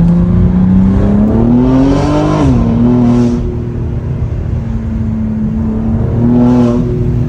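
BMW G82 M4's S58 twin-turbo straight-six running through catless resonated downpipes and a single midpipe, pulling with the pitch rising for about two and a half seconds, then dropping quickly and holding steady, with a short rise again near the end.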